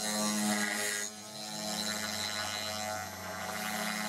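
DIY CNC router cutting wood: the spindle runs with a steady hum while the axis motors whine and shift in pitch as the gantry moves. The cutting noise drops away briefly about a second in.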